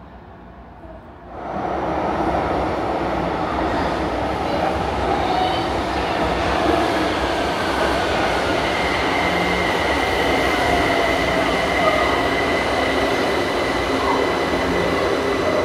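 São Paulo Metro Line 2 train moving at the platform. Its noise comes in abruptly about a second in and stays loud, and a steady high whine joins about halfway through.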